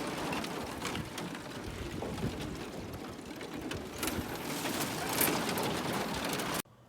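Thin lake ice crackling and crunching against a small boat's hull as a trolling motor pushes it through, a dense crackling noise that cuts off suddenly near the end.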